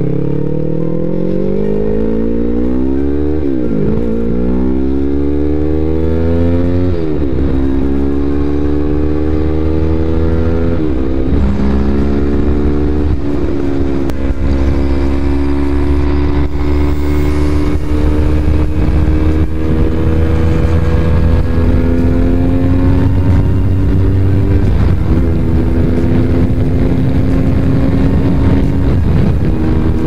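Yamaha YZF-R3's 321 cc parallel-twin engine through a Two Brothers full-system exhaust, heard on board while riding hard. The revs climb and drop sharply at each upshift, about four shifts in the first dozen seconds, then settle into a long, slowly rising pull in a high gear.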